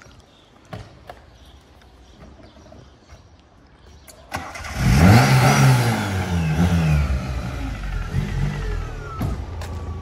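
Tofaş Doğan SLX four-cylinder engine cranked and catching about halfway through, revved up and down twice through an aftermarket Varex exhaust, then settling into a loud, steady idle.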